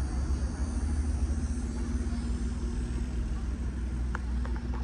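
Low, steady rumble of a car engine running, with a faint steady hum over it.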